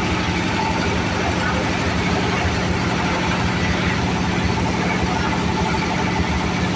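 Small stationary diesel engine running steadily under a test run, driving a palm loose-fruit thresher, with a constant hum.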